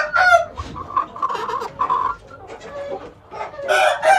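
Roosters crowing and clucking: a crow trails off just as the sound begins, shorter clucking calls follow, and another loud crow starts near the end.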